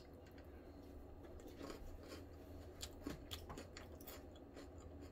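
Faint close-up chewing of a mouthful of lettuce salad, with soft crunches and scattered mouth clicks over a low steady hum.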